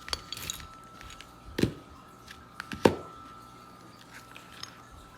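Hard objects being handled and set down: three sharp knocks about a second and a half apart, with a brief crinkly rustle just after the first.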